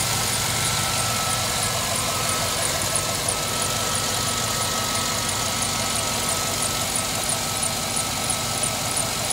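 GMC Yukon/Tahoe V8 engine idling steadily, with a light high ticking about three times a second. It is running to bleed the cooling system after a new oil pressure sensor and screen were fitted to cure a cylinder 7 misfire.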